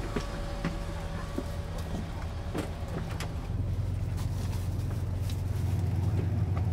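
A bus engine running at idle, heard from inside the cabin, a steady low hum that grows louder about halfway through. Scattered light clicks and knocks sound over it in the first few seconds.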